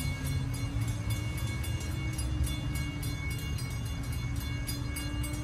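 Railroad grade-crossing warning bell dinging rapidly, several strikes a second, over a low steady rumble and a hum that slowly rises in pitch.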